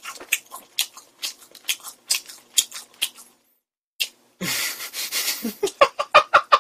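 A man chewing food close to the microphone, with quick wet mouth clicks and smacks. The sound drops out for about a second, then a breathy laugh comes near the end.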